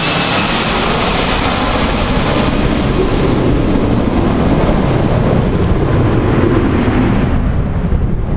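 Boeing 757-200 jet engines passing low overhead on landing approach: a loud, steady rush whose high end fades over several seconds as the jet moves away. Wind buffets the microphone near the end.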